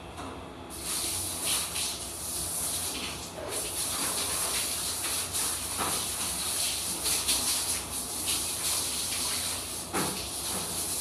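Handheld shower head spraying water while rinsing a dog: a steady hiss that starts about a second in.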